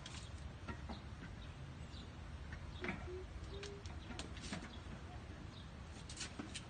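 Paintbrushes working on a metal window grill, making faint scattered taps and scrapes against a quiet outdoor background. A short animal call comes about three seconds in.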